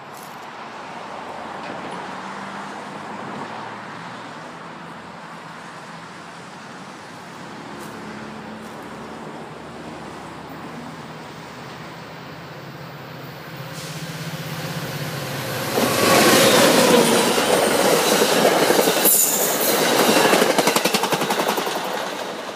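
Commuter train approaching on the track. Its rail noise swells and turns loud about two-thirds of the way through, with rapid clicking of the wheels and a brief high-pitched wheel squeal.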